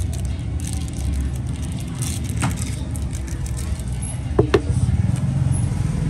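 Steady low rumble of road traffic, with two short sharp clicks about four and a half seconds in.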